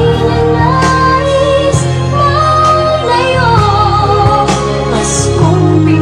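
Music: a woman singing a slow, gliding melody over a steady bass and instrumental backing.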